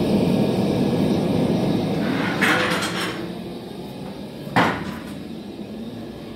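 Steady rushing of the forge's gas burner, which fades about three seconds in as the hot rivet is carried away from it. A few light metal clicks follow, then one sharp metal knock as the rivet in its tongs meets the steel workpiece.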